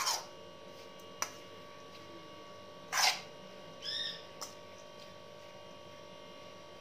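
Metal spoon scraping and knocking against a metal bowl as grated potato, onion and herbs are stirred: a few separate scrapes, the loudest about three seconds in, and a short high squeak about a second later.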